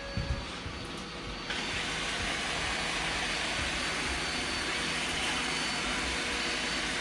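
A Roomba robot vacuum starting a spot-clean cycle: a few low thumps, then about a second and a half in its vacuum motor and brushes switch on with a sudden, steady whir.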